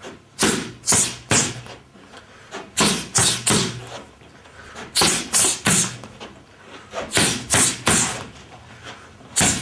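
Boxing-glove punches smacking into a partner's boxing gloves in quick three-punch combinations (uppercut, overhand, jab). There are four sets of three sharp smacks, one set every couple of seconds, with a fifth set starting at the very end.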